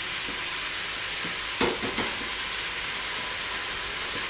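Lardons and mushrooms sizzling steadily in the hot bowl of a Moulinex Cookeo multicooker on its browning setting, with two sharp knocks about a second and a half and two seconds in.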